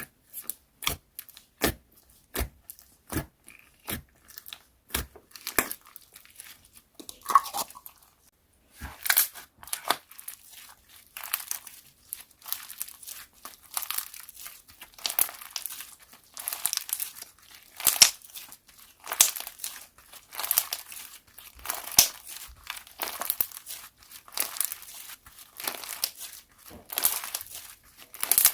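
Slime being squished and stretched by hand. For the first several seconds it gives sharp popping clicks about one and a half times a second. From about nine seconds in, the clicks give way to denser crinkly crackling.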